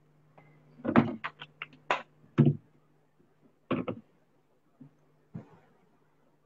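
Handling noise on a video call: a quick run of sharp clicks and taps, bunched about one to two and a half seconds in, with a pair more near four seconds and a few faint ones later, over a faint steady low hum.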